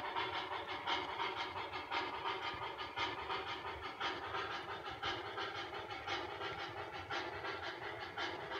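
HO-scale model train running: the MTH Union Pacific 4-12-2's onboard sound system chuffing out simulated steam exhaust from its speaker, with the cattle cars' wheels clicking along the track. A steady rhythm with a stronger beat about once a second.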